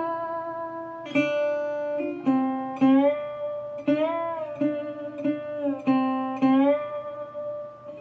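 Acoustic guitar playing a slow instrumental line of single plucked notes, several of them sliding up or down in pitch.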